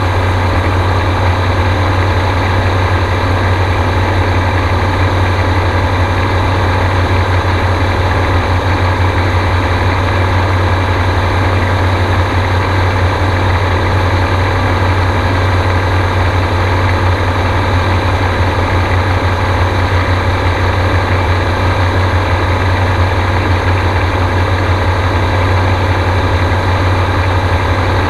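Gyrocopter's engine and pusher propeller running steadily in flight, a loud, even low drone heard from on board.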